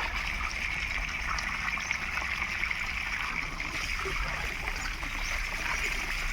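Water running steadily, a continuous trickling, streaming flow.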